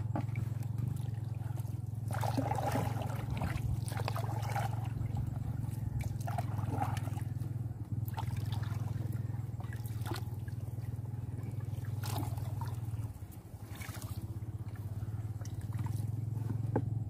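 Water trickling and splashing as a baited lobster trap is set in the water, over a steady low hum that drops away briefly about thirteen seconds in.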